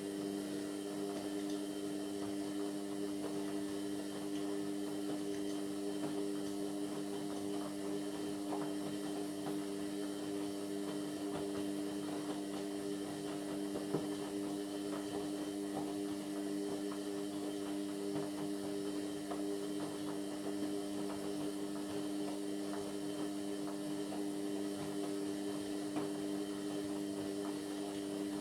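Indesit MyTime washing machine's drain pump running with a steady electric hum and light crackling of water passing through, cutting off at the end as the pump stops.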